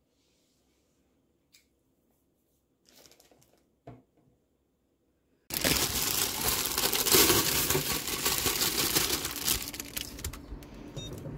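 Near silence with a few faint clicks and rustles, then about five seconds in a loud, close crinkling, crackling noise starts suddenly and goes on for several seconds, easing off near the end.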